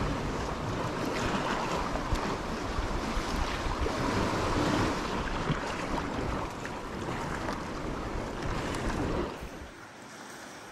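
Wind buffeting the microphone over the sound of the sea. Near the end it drops suddenly to a quieter wash of small waves on a pebble beach.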